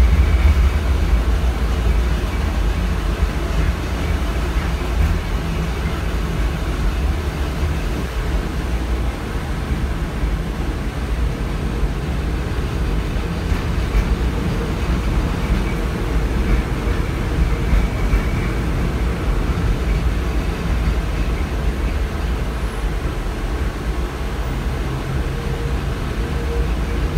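LM-68M3 tram heard from inside the car while running along the line: a steady low rumble of the running gear on the rails, with no sudden events.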